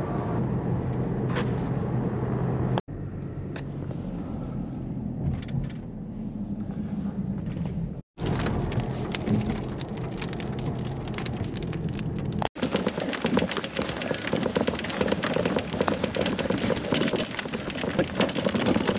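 Steady low drone of a car engine and road noise inside a moving car, broken by three abrupt cuts. After the last cut, about twelve seconds in, a dense crackling noise takes over.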